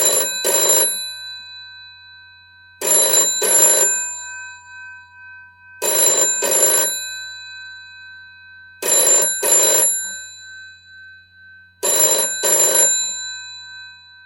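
Old telephone's bell ringtone ringing in doubles: five pairs of short bell bursts about every three seconds, the bell's tone hanging on between rings.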